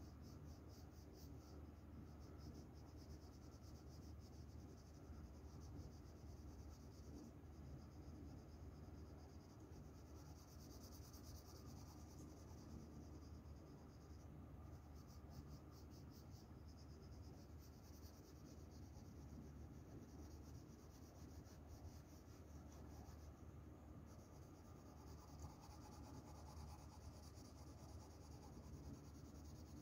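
Pencil shading on paper: faint, fast, scratchy back-and-forth strokes, with a few brief pauses.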